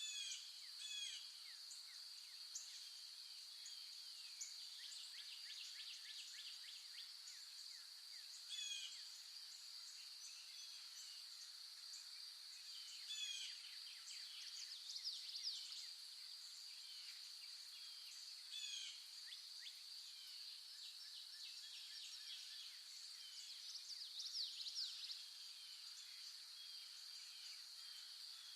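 Natural outdoor ambience: a steady high-pitched drone of insects with many short bird chirps and calls, louder clusters about 1, 9, 13–15, 19 and 24–25 seconds in.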